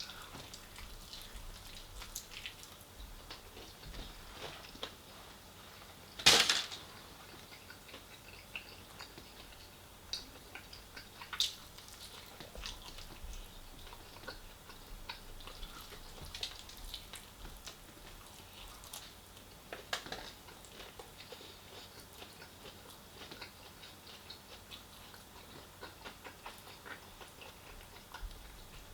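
Close-up eating sounds: fried chicken being chewed, with scattered small clicks and crackles. A single louder, sharp noise stands out about six seconds in, and lesser ones near eleven and twenty seconds.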